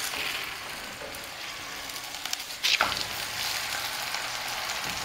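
Oil sizzling steadily under a chicken keema paratha frying on a hot tawa. About two and a half seconds in there is a sharp clatter, after which the sizzling is louder.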